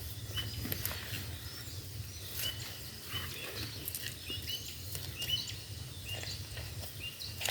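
Many short, high chirping animal calls repeating over and over, with a low steady rumble underneath and a few soft knocks.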